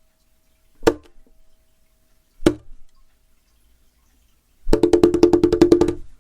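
Percussive music: two single wood-block-like knocks a second and a half apart, then a fast roll of knocks, about ten a second, lasting a second and a half.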